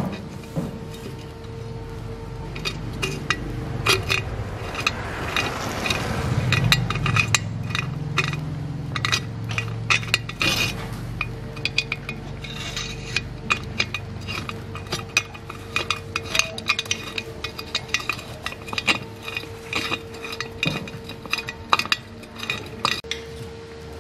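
Hands and a small tool clicking and clinking on plastic and metal parts as a gasoline chainsaw's engine cover and fuel tank are fitted back on, in many short irregular taps over a faint steady hum.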